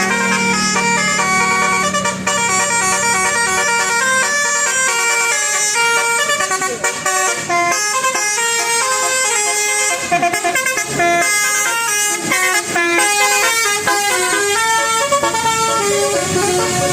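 A bus's telolet basuri horn, a multi-tone musical air horn, playing a fast tune: one note after another in quick steps, loud and unbroken.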